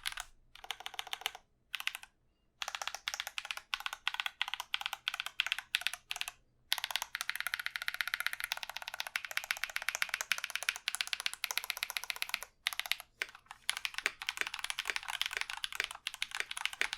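Key65 mechanical keyboard with lubed Holy Panda tactile switches and PBT keycaps being typed on quickly, in fast runs of keystrokes broken by brief pauses. The keystrokes thin out to single, spaced presses near the end.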